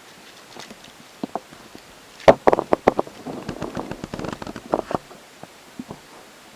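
A quick, irregular run of sharp knocks, clicks and crackles, the loudest in a burst about two and a half seconds in, then thinning out to a few scattered clicks.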